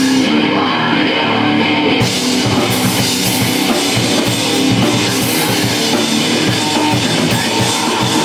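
Loud rock music driven by a drum kit, heavy-metal in character.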